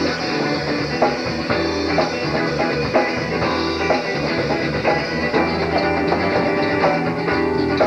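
Southern rock band playing: guitars, bass guitar and drum kit, with a steady beat.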